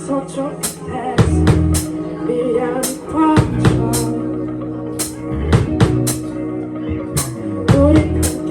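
A live rock band playing a song, with a drum kit hitting a regular beat over a sustained bass line and melodic parts.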